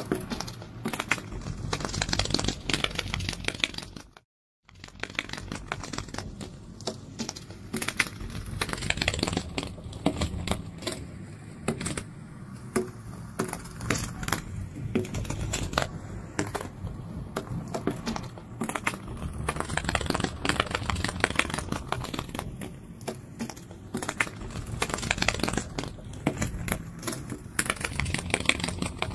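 Butterfly wings fluttering: a dense, irregular rattle of rapid clicks, broken by a brief gap of silence about four seconds in.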